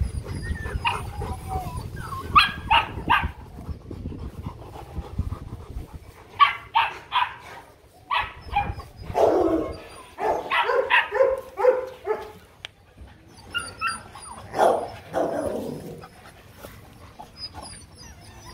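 Rottweilers barking and whimpering during a mating mount: short bursts in clusters, a quick run of three about two seconds in and a longer run around ten seconds in.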